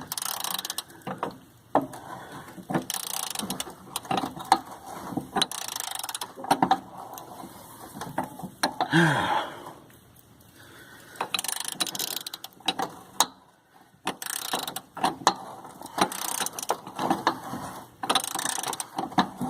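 Socket ratchet clicking in runs of strokes as it works a tight rear body mount bolt loose from the frame of a Chevy S10 Blazer, with a couple of short pauses between runs.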